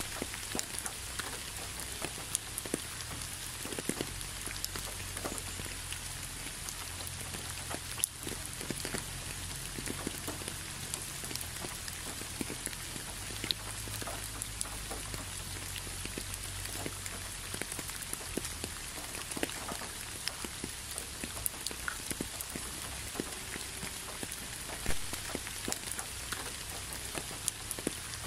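Steady rain falling, an even hiss with many individual drops ticking sharply through it, over a low steady rumble.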